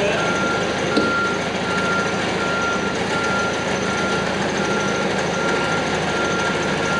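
An electronic warning beeper sounding one high, steady tone with a few brief breaks, over loud steady background noise; a single sharp knock about a second in.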